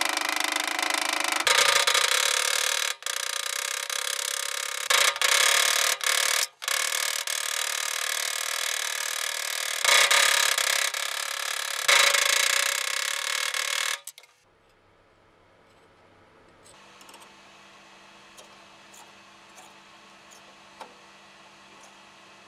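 A wooden dowel rubbed hard back and forth over a thin shibuichi sheet clamped in a vise, bending it over to fold it: a loud, continuous scraping with a few short breaks. It stops about 14 seconds in, leaving a quiet hum and a few faint clicks.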